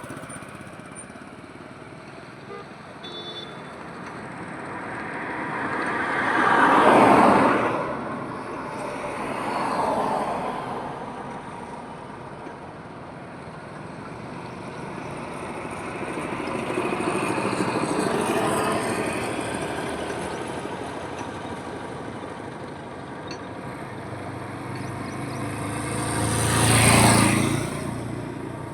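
Highway traffic: vehicles passing one after another, each swelling and fading against steady road noise. The loudest passes come about a quarter of the way in and near the end, the last with a deep rumble, and quieter ones swell in between.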